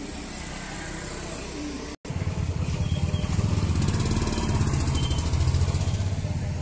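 A motorcycle engine running close by as it rides past, starting at a cut about two seconds in. It is loudest in the middle and eases off near the end. Before the cut there is a quieter steady background.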